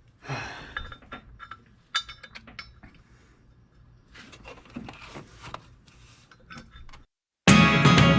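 Scattered light metallic clinks and knocks of hand tools and engine parts being handled. Near the end the sound cuts out briefly, and loud guitar music starts.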